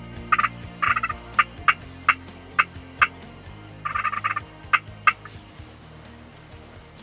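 Wild turkey gobbling in three short rapid rattling bursts, near the start, about a second in and about four seconds in, with single sharp call notes between them.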